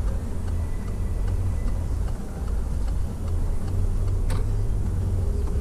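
Cabin of a moving Peugeot 308: steady low engine and road rumble, with the turn signal ticking evenly and one sharper click about four seconds in.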